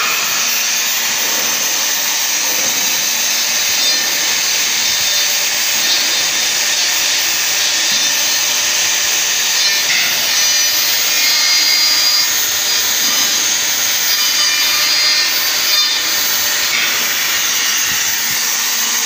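Metabo KFM 15-10 F electric edge milling machine cutting a 1 mm chamfer along the edge of a steel plate. It is a steady, loud metal-cutting noise with a high whine, running unbroken under load.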